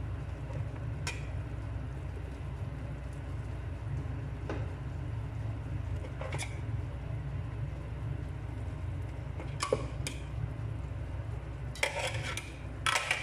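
Metal tongs clinking and scraping against a metal baking tray as chicken pieces are moved, in a few scattered clicks that bunch together near the end, over a steady low hum.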